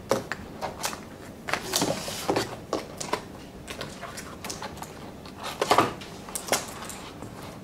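Packaging being handled: scattered rustles, scrapes and knocks as a keyboard is worked out of its cardboard box tray and a cardboard insert is lifted out, the loudest knocks about two seconds in and just before six seconds.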